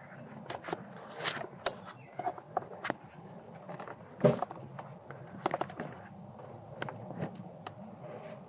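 Irregular clicks, knocks and scrapes of hands and parts being handled in a pickup's engine bay, with two sharper knocks, one a couple of seconds in and another near the middle.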